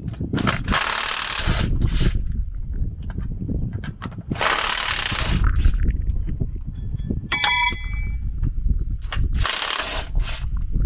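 Mechanical work on a tractor's rear end: three separate bursts of hissing noise, each about a second long, with knocks and a brief ringing metallic clink about two-thirds of the way in.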